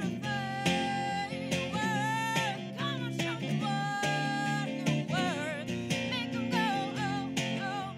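A woman singing, with long held notes and quick bending runs, over a strummed acoustic guitar.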